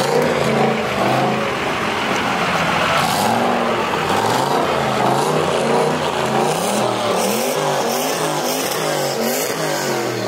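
Pickup engine of a lowered classic Dodge Power Wagon running as the truck rolls slowly by, its pitch rising and falling again and again with throttle blips.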